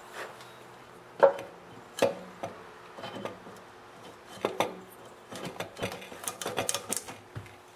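Light clinks and knocks of a small engine's flywheel being turned by hand and slid onto the crankshaft while its keyway is lined up with the flywheel key: a few separate knocks, then a quick run of small clicks near the end.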